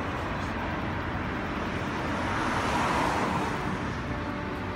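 Road traffic going by, with one vehicle passing close and growing louder to a peak about three seconds in before fading.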